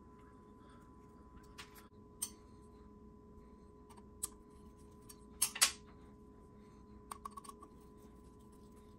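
Scattered small clicks and taps of a hex driver and screws being worked against the metal chassis of an RC motorcycle as the motor is fastened, the loudest a pair of knocks about five and a half seconds in and a quick run of clicks about seven seconds in. A faint steady hum sits underneath.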